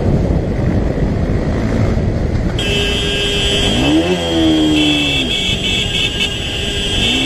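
Motorcycle engine and wind noise while riding in traffic. The engine revs up, holds and drops back twice, about four seconds in and again near the end. A steady high-pitched whine joins in a few seconds in.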